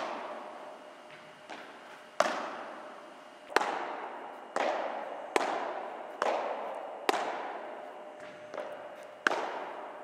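Padel ball being struck back and forth with padel rackets in a rally, with bounces between hits: sharp pops roughly once a second, each ringing out in a long echo from the large hall.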